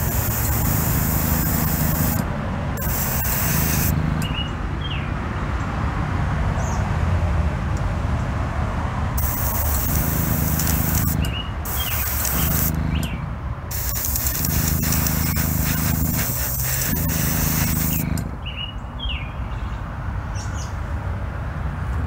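Aerosol can of 2K clear coat spraying in several hissing bursts of one to four seconds, with short pauses between passes. Birds chirp briefly in the gaps.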